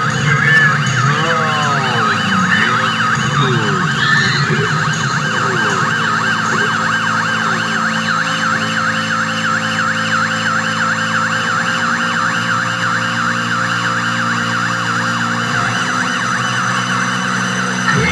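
Industrial noise music: a siren-like tone warbling rapidly up and down several times a second over a steady low drone, with sliding pitch sweeps in the first few seconds.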